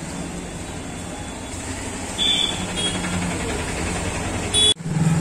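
Street traffic background: a steady hum of passing vehicles, with a few brief high-pitched beeps about two seconds in and a short louder sound just before the audio breaks off near the end.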